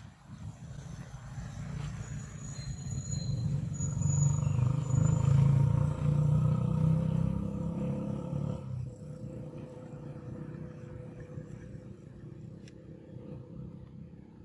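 A motor vehicle engine passing close by. Its low rumble rises to its loudest about five seconds in, drops away sharply after about nine seconds, and then a quieter steady hum carries on.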